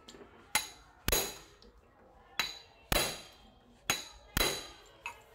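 A hammer strikes a hand impact screwdriver six times, in three pairs of sharp metallic blows about half a second apart, each with a short ring. The blows are driving the impact driver to break loose a screw on a motorcycle engine's aluminium plate.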